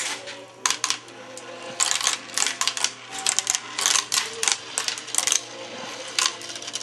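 Marbles clicking and clattering through a plastic marble run in quick runs of sharp clicks, thickest from about two to five seconds in.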